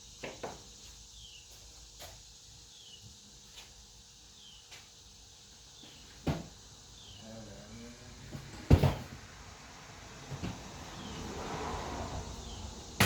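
Scattered clicks and clunks of things being handled, with one loud knock about nine seconds in. A voice mutters briefly just before it.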